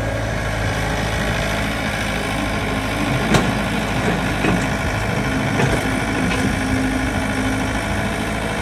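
Yanmar ViO70 mini excavator's diesel engine running steadily while the machine works its arm and bucket, with one sharp knock about three seconds in.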